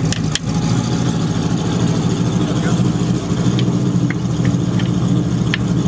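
A car engine idling steadily throughout. A couple of sharp knocks right at the start and a few light metal clinks later come from work on the wheel hub.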